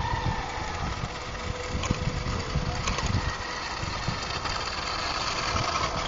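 Fisher-Price battery-powered toy RC buggy driving on asphalt: its small electric motor whirs and its plastic wheels roll and grind on the rough surface, growing louder as the car comes up close, over a low, uneven rumble.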